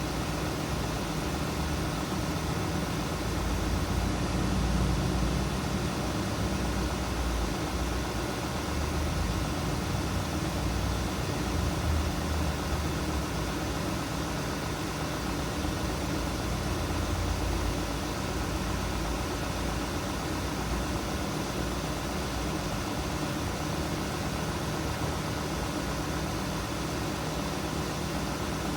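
2016 Volkswagen Tiguan's engine idling with the air conditioning switched on: a steady hum and rumble, its low end swelling somewhat louder for a stretch in the middle.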